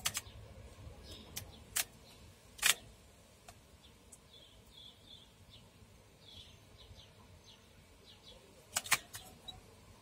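Faint short canary chirps, with a few sharp ticks in the first three seconds and a pair of louder ones near the end.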